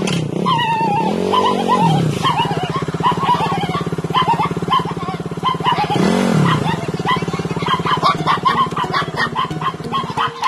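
Suzuki Raider 150's single-cylinder four-stroke engine running after being started, revved up and back down twice: about a second in and again around six seconds.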